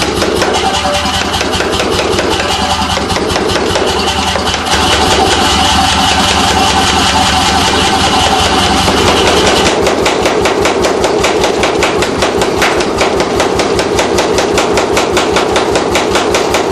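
C41 air forging hammer striking red-hot steel between its dies in a rapid, even run of blows, over the low running hum of the machine. The hum drops away about ten seconds in, leaving just the blows.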